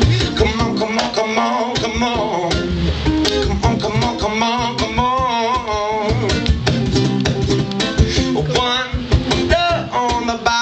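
Live band music: guitar and drums playing with a singing voice, no words made out.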